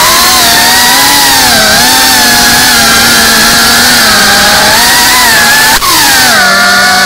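Motors and propellers of a Geprc cinewhoop FPV drone, heard through the camera mounted on it: a loud, buzzing whine whose pitch wavers up and down with the throttle. About six seconds in there is a brief click, after which the pitch settles a little lower as the drone slows.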